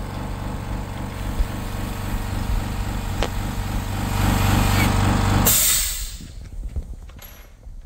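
A small electric motor runs with a steady, pulsing hum. It swells louder about four seconds in, then cuts off abruptly about five and a half seconds in, leaving faint clicks and rustles.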